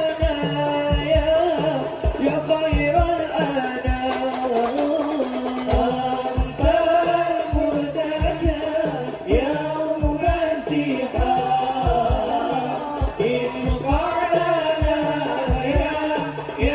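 Group of men singing an Islamic devotional song together through microphones, over a steady beat of low drum strikes.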